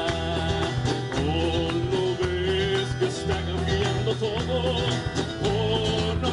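Live band music: acoustic and electric guitars with a drum kit, playing a Latin worship song.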